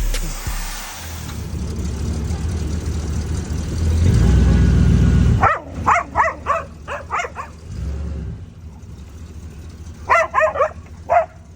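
A low, steady rumble, loudest just before it cuts off abruptly about five seconds in. Then a dog barks in quick runs of short barks, a string of about six followed by another burst near the end.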